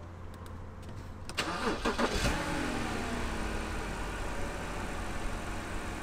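2009 BMW 328i's N52 straight-six cranked by the starter about a second and a half in, catching quickly with a brief flare of revs, then settling into a steady idle. With a new ignition coil fitted, it runs with no misfire.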